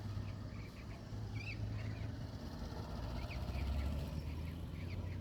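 Airbus H145 (BK117 D-3) helicopter running, a steady low rumble, with small birds chirping over it.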